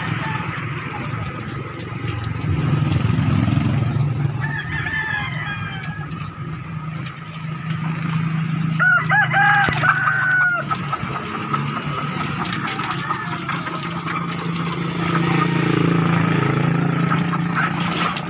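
A rooster crows once, about nine seconds in, a single call of under two seconds. Fainter chicken clucks come a few seconds earlier, over a steady low rumble of background noise.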